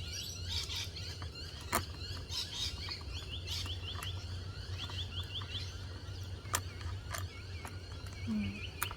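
Small birds chirping in short, rapid runs of chirps, with a few sharp clicks and knocks from hands handling plastic pots and bolts, over a steady low hum.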